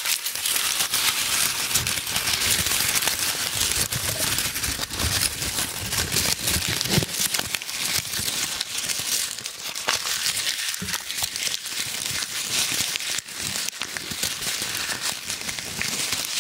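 Euro banknotes being crumpled and rustled between two hands, a dense, continuous papery crackling.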